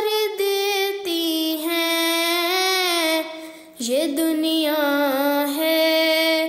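A female voice singing an Urdu nazm in long, gently wavering held notes, with a short breath break about three and a half seconds in.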